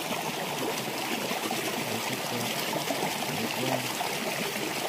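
Shallow stream flowing over rocks, a steady trickling rush of water.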